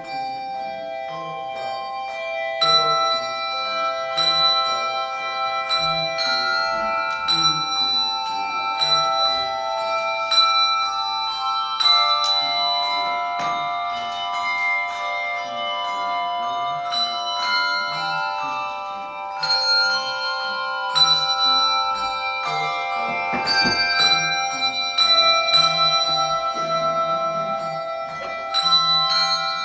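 Handbell choir playing a piece: many bells struck in turn and left ringing, their tones overlapping into chords.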